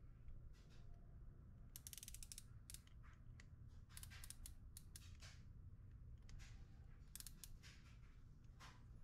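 Faint clicking of a digital micrometer's plastic ratchet stop as it is thumbed round to close the spindle on a stack of steel gage blocks: a quick run of clicks about two seconds in, scattered single clicks, and another short run about seven seconds in.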